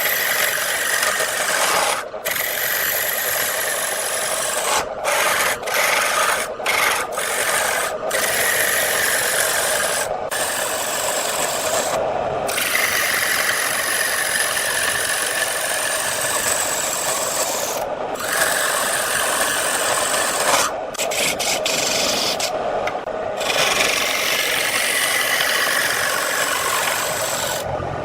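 Woodturning tool cutting a spinning workpiece on a lathe: a continuous scraping hiss with slowly drifting pitch, broken by short gaps every few seconds.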